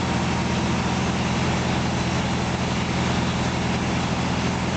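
Tractor engine idling steadily, with an even pulsing beat.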